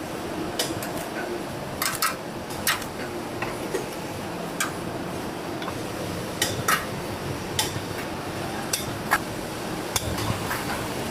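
Irregular sharp metallic clinks and knocks, about a dozen, over a steady background noise.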